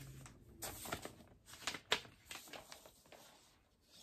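Soft rustling and sliding of record packaging being handled: a vinyl LP drawn out of its paper inner sleeve, in a few short scrapes and rustles, the sharpest a little before two seconds in.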